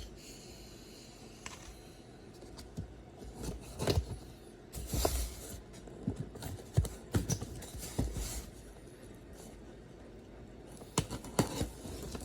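A cardboard shipping box being handled and opened, with irregular knocks, scrapes and short rustles of cardboard and packing.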